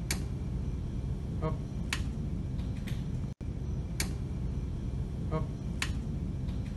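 4800 V high-voltage transformer powered up from the mains, humming steadily, with a few sharp clicks and two short rattles. With no load it draws about 5 amperes after a spike above 10, far more than it should: the sign of a faulty transformer.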